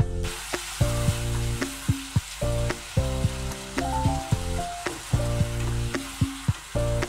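Masala paste with tomato sizzling in hot oil in a non-stick kadai while a slotted spatula stirs and scrapes it, with scattered clicks of the spatula against the pan. It is being fried until the tomato softens. Background music with a melody plays over it throughout.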